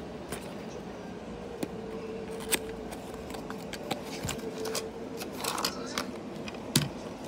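A cardboard model-bus box being handled and a die-cast model bus being set on a table: scattered clicks, taps and cardboard rubbing, with a sharper knock near the end, over a faint steady hum.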